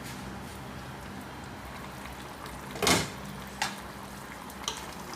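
Cookware clunking once, loudly, about three seconds in, followed by a couple of lighter clicks, over a steady low hum from the cooking setup.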